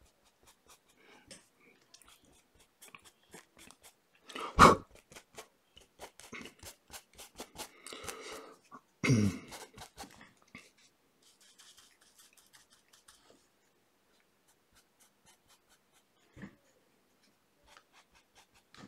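Paintbrush dabbing short strokes of acrylic paint onto a canvas: a long run of faint taps and scratches of the bristles. Two much louder thumps come a little before halfway, about four and a half seconds apart.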